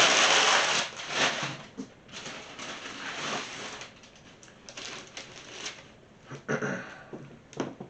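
Packing paper and cardboard being handled and crinkled, loudest in a burst of rustling during the first second, then scattered softer rustles and small knocks.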